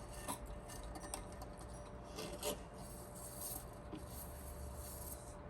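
Faint rubbing and small scattered clicks of hand tools and fingers working the old dial string and tension spring out of a receiver's tuner mechanism, with a sharper click about two and a half seconds in.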